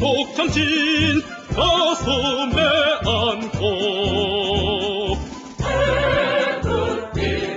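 Background music: a sung song, the singer holding long notes with heavy vibrato over a steady beat.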